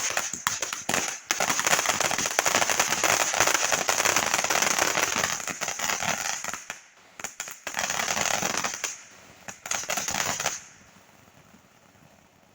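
Fireworks going off: a dense, rapid crackle of many small pops, typical of a string of firecrackers, breaking off briefly twice and stopping shortly before the end.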